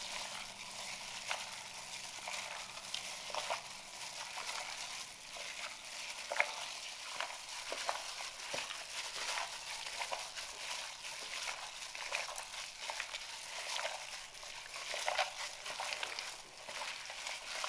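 Gloved hands squishing and turning chunks of raw veal in a wet onion-and-spice marinade in a glass bowl: a steady crackle of small squelches and crinkling from the thin plastic gloves.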